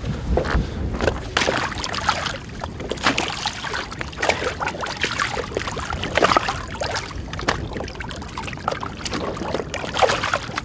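Water splashing and sloshing against a boat's hull, with irregular splashes as a muskie is held by hand in the water alongside and released.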